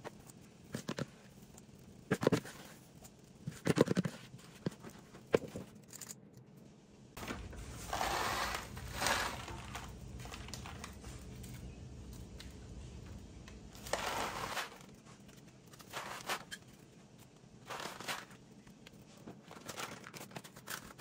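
A few sharp knocks of a utensil against the batter bowl in the first seconds, then intermittent crinkling and rustling of paper muffin cases as they are handled and pressed into shape.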